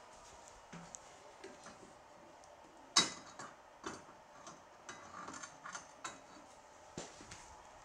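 Scattered light metallic clinks and knocks of steel plate and pieces being handled on the slats of a CNC plasma table, with one sharper clank about three seconds in.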